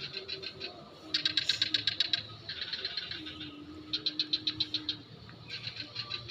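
Bird calls: fast trills of sharp chirps, about ten a second, coming in bouts of about a second again and again.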